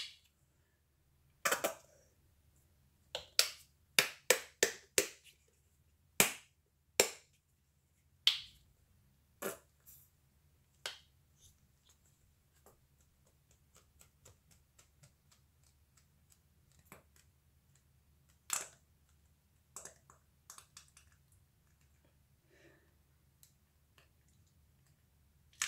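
Sharp clicks and taps of paint tubes, caps and plastic cups being handled while acrylic paints are mixed: a quick run of clicks early on, then scattered single ones that grow sparse.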